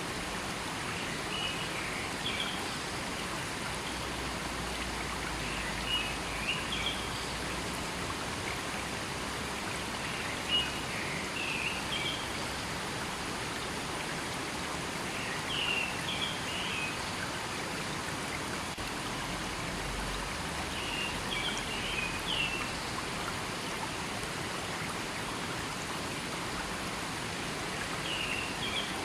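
A river flowing with a steady rush of water, and a bird singing short, high chirping phrases about every five seconds.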